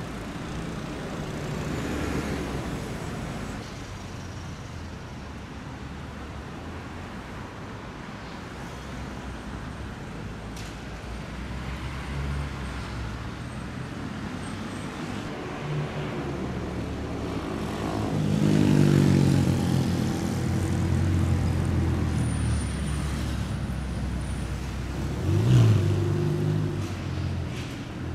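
Sports car engines and exhausts in city traffic, several cars one after another pulling away. About two-thirds in, one engine gets louder and rises in pitch as it accelerates, and near the end there is a short sharp rev.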